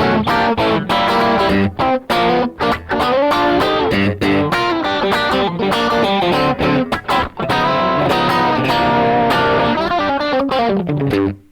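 Electric guitar played through the Rad Custom Shop Valkyrie overdrive pedal: a fast, busy improvised line of single notes and chord stabs with short pauses, thinning out near the end.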